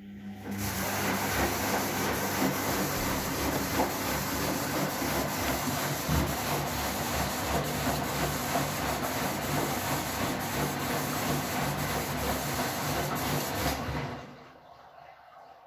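Gorenje SensoCare front-loading washing machine tumbling a wet wash load: the drum motor hums steadily while water and laundry slosh inside the drum. The tumbling stops about fourteen seconds in.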